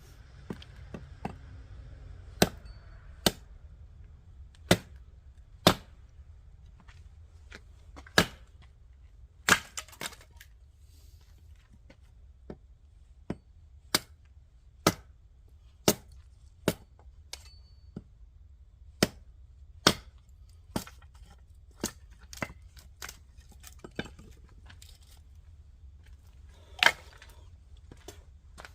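Oak firewood being chopped and broken apart: a series of sharp, dry wooden cracks at irregular intervals, roughly one a second.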